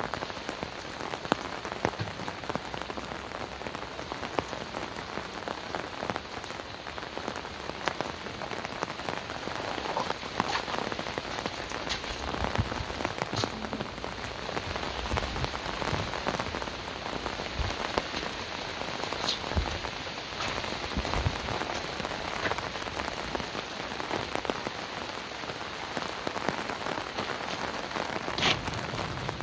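Heavy rain falling steadily, with individual drops landing as frequent sharp taps over an even hiss.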